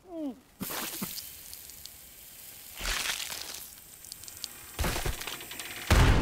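A short falling whimper, then a cartoon heat-vision laser beam hissing and sizzling as it slices through a body, swelling louder a few times. A loud, deep blast comes near the end.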